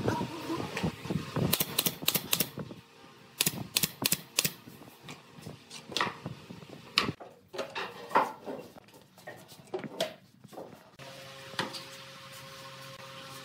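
Workshop clatter: quick clusters of sharp clacks and knocks as pine boards are handled on a concrete floor. A steady hum takes over for the last couple of seconds.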